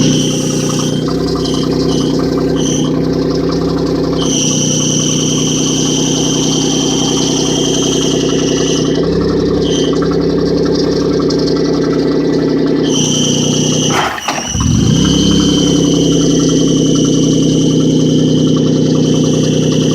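1998 Audi A4 B5 quattro engine idling with a high-pitched whine that cuts in and out, at first in short blips and later in long stretches. The owner links the whine to touching the clutch. About two thirds of the way through, the engine note dips briefly and recovers.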